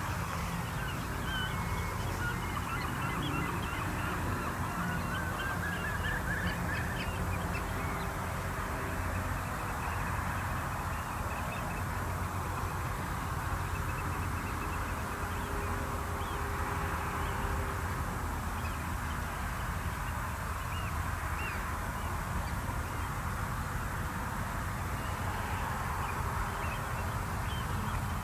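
Waterbirds calling again and again, with a quick series of rising calls a few seconds in, over a steady low background rumble.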